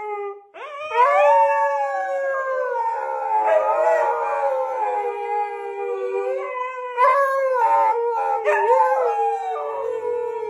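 Two huskies howling together in long, overlapping howls that rise and waver in pitch.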